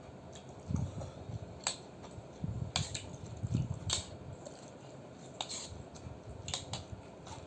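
Eating utensils clinking against a bowl of noodle soup: about five sharp clinks spread a second or so apart, over low handling noise.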